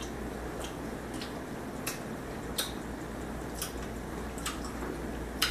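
Faint eating sounds from chewing lobster tail meat and handling shellfish by hand: scattered small clicks, roughly one a second, over a steady low hum.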